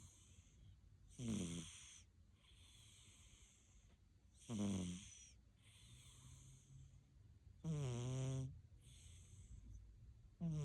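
Siamese cat snoring: three loud snores about three seconds apart, with softer hissing breaths between them.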